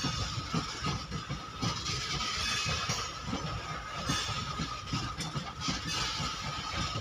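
Loaded freight wagons rolling steadily past, their steel wheels clattering over rail joints in a continuous run of low knocks over a rushing hiss.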